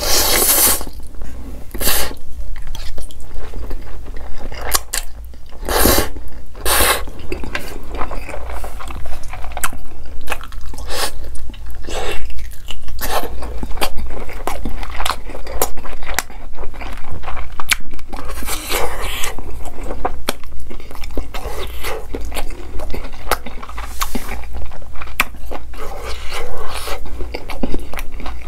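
Close-miked slurping of saucy instant noodles and wet chewing. There is a long slurp at the start and more slurps later, among many small mouth clicks. Chopsticks click and scrape against a metal tray.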